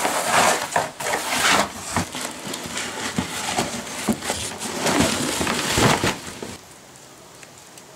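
Cardboard boxes being handled and opened, rustling and scraping in uneven bursts that die down about six and a half seconds in.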